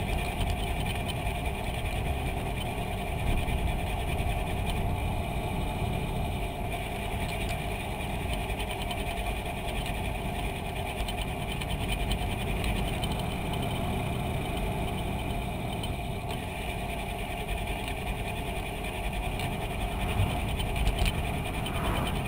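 Steady rumble of wind and tyre-on-asphalt noise picked up by a camera mounted on a moving bicycle, with a faint steady hum over it.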